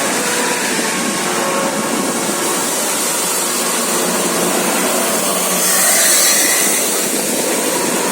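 Steady rushing noise of road traffic, with no horn melody standing out, swelling briefly about six seconds in.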